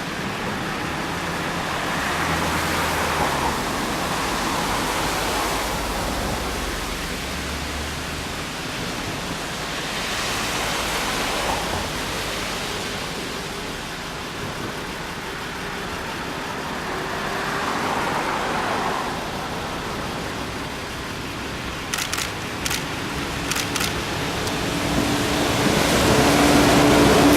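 Passing traffic noise that swells and fades several times. A few sharp clicks come about 22 seconds in, and near the end a louder sound builds up with a steady hum in it.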